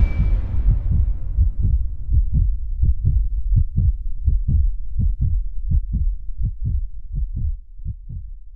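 A low heartbeat sound effect: paired thumps, somewhat under one beat a second, growing fainter toward the end. At the start, the ringing of a big boom is still dying away.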